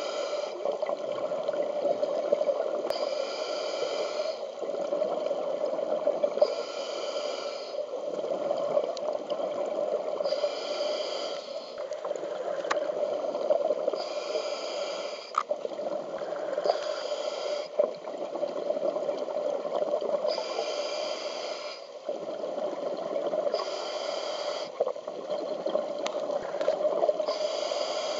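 Scuba diver breathing through a regulator underwater: a hissing breath every three to four seconds, with bubbling and gurgling between breaths over a steady underwater hum.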